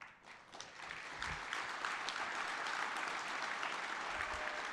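An audience applauding, the clapping swelling over the first second and then holding steady. There are two dull low thumps, about a second in and near the end.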